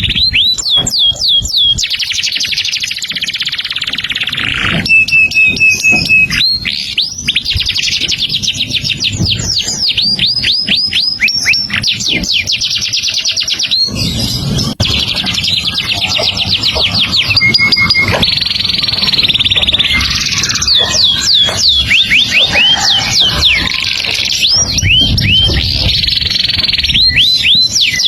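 A songbird singing non-stop and energetically, with rapid series of high, down-slurred whistled notes alternating with buzzy, scratchy passages and a few short steady trills.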